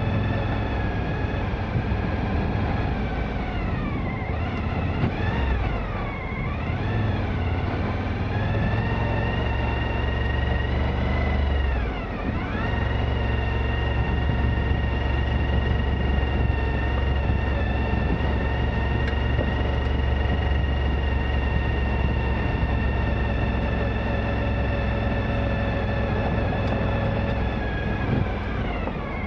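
Suzuki V-Strom 1000's V-twin engine running while the motorcycle is ridden. Its pitch dips and rises a few times in the first dozen seconds as the revs change, then holds steady, with another dip near the end.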